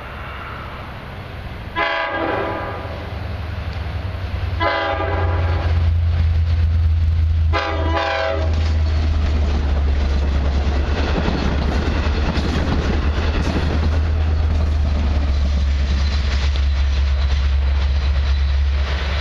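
Long Island Rail Road train hauled by EMD DE30AC diesel-electric locomotives passing close by. Its horn sounds three blasts about three seconds apart, the last one broken in two. The diesel's heavy rumble and the cars' running noise then grow and carry on as the train goes by.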